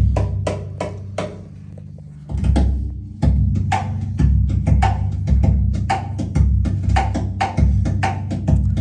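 Recorded music played over a hi-fi system, the Eversolo DAC-Z6 feeding a Parasound preamp and power amp: a track with heavy bass and sharp, regular percussion hits. It drops back and thins out about a second in, then the full beat returns about two seconds later.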